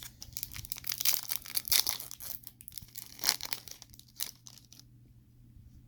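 A foil trading-card pack wrapper being torn open and crinkled by hand, a dense run of crackling and tearing that fades off in the last second or so.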